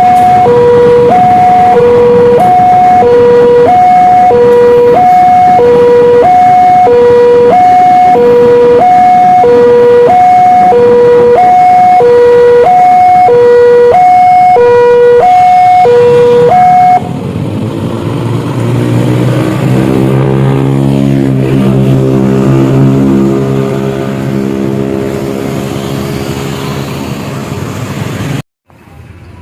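Railroad crossing warning signal sounding a loud two-tone electronic alarm, switching between a high and a low note about once a second. About two-thirds of the way in the alarm stops and the low, steady engine drone of a passing train's diesel locomotive takes over, until the sound cuts off suddenly near the end.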